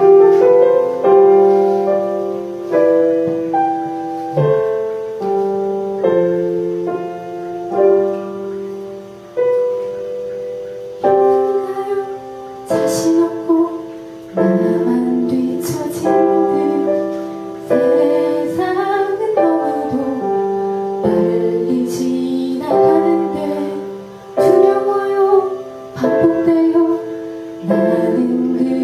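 Slow piano accompaniment plays an introduction of held notes. About halfway through, a woman begins singing a gentle ballad into a microphone over the piano.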